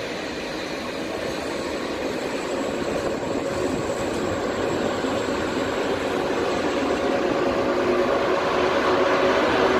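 České dráhy class 151 electric locomotive hauling passenger coaches, drawing closer and growing steadily louder, with a steady hum.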